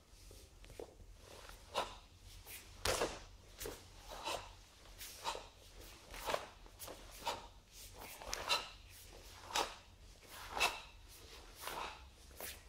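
A barefoot karateka performing a kata: feet stepping and sliding on a sports-hall floor, with the cotton uniform snapping on each technique. There is about one short, sharp sound a second, some louder than others.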